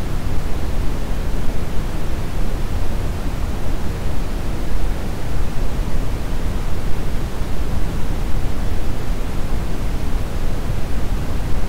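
Steady brown noise: an even, deep rushing hiss weighted toward the low end, with no change throughout.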